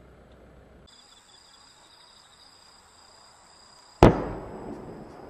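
One loud firework bang about four seconds in, dying away in a short echo, over a steady high chirping of crickets.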